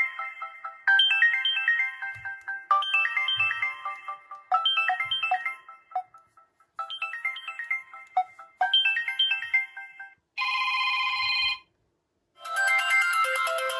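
Samsung Galaxy Ace 2 smartphone playing its stock ringtones through its speaker. A bright melody of short plucked-sounding notes repeats about every two seconds, stops about ten seconds in, and gives way to a different held electronic tone, then another tune near the end, as one ringtone after another is played.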